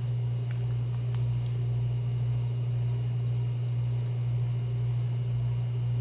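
A steady low hum, with a few faint soft clicks from a silicone spoon stirring stew in an aluminium pressure cooker pot.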